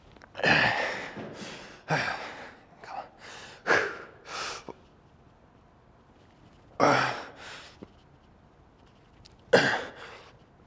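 A man's forceful, breathy exhalations and gasps from heavy lifting exertion: about six loud bursts, mostly in the first five seconds, then two more around seven and nine and a half seconds in.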